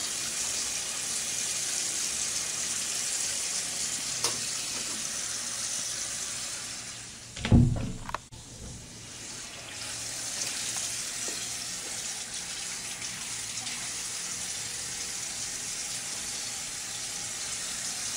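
Bathroom sink faucet running, a steady hiss of water falling into the basin. About seven and a half seconds in there is one short loud thump, and the water sound dips briefly after it.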